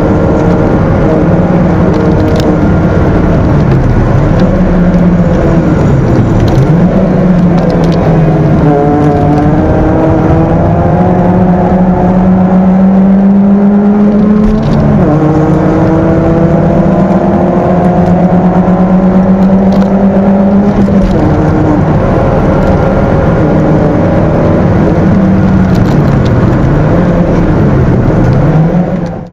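Stock Peugeot 206 1.6-litre four-cylinder engine at racing speed, heard from inside the cabin over road and wind noise. Its pitch climbs under load, drops sharply at two gear changes about halfway through, and dips and picks up again several times near the start and near the end.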